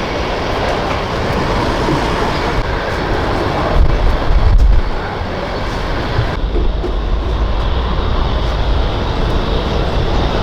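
Jet aircraft engines running loud and steady, a continuous rush with a heavier low rumble surging about four to five seconds in.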